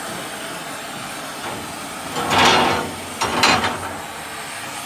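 Oxy-fuel cutting torch flame hissing steadily, with two short, loud whooshes of gas a little after two seconds and about three and a half seconds in.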